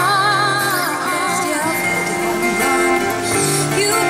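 A woman singing held, wavering notes over two acoustic guitars.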